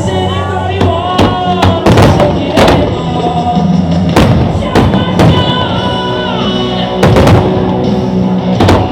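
Loud show music with held tones and a beat, overlaid by about a dozen sharp firework bangs at irregular intervals.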